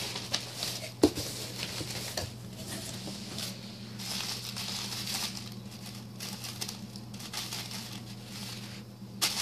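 Tissue paper crinkling and rustling as a tissue-wrapped package is handled and unwrapped, with small crackles and one sharp click about a second in, over a steady low hum.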